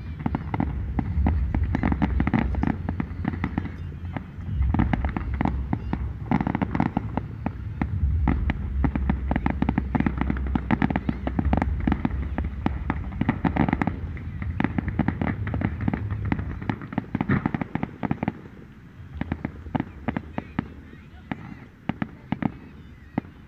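Fireworks going off: rapid crackling and popping over a steady low rumble. The bursts thin out to scattered pops for the last few seconds.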